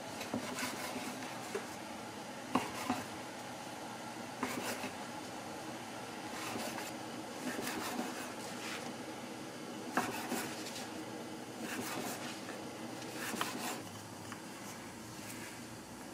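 Knife cutting the crusts off slices of white bread on a wooden cutting board: scraping through the crust, with sharp taps of the blade on the board every second or two.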